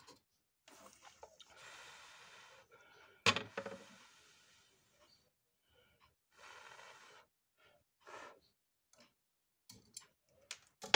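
A few breathy exhales close to the microphone, and one sharp metallic clack about three seconds in as the soldering iron is set down in its metal tin, followed by a few faint light clicks near the end.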